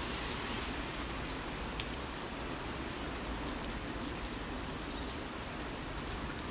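Steady rain falling on wet asphalt and puddles: an even hiss with scattered ticks of single drops.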